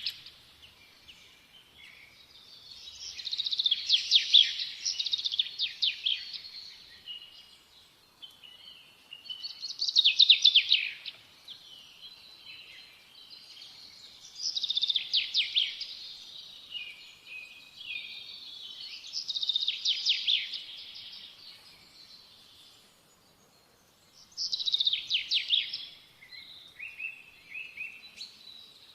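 A songbird singing in repeated phrases of rapid trilled notes, one phrase every five seconds or so, with short pauses between.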